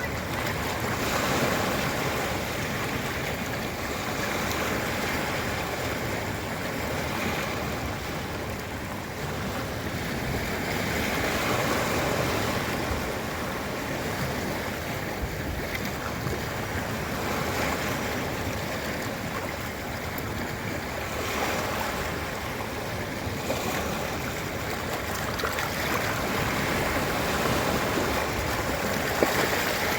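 Ocean surf washing onto a beach: a continuous rush of breaking waves that swells and eases every few seconds.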